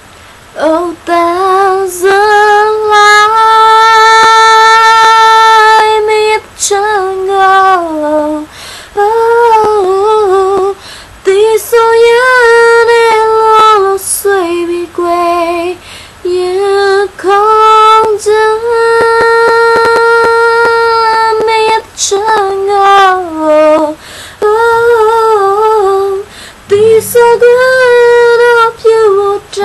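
A woman's high voice singing unaccompanied, in phrases with long held notes and short breaks between them. A low steady tone comes in near the end.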